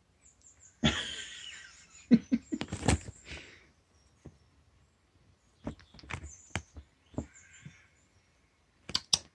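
A kitten playing on a round plastic ball-track scratcher toy, batting at a string wand toy: irregular knocks, clicks and scrapes. They come in bunches, the loudest between about one and three seconds in, and again near the end.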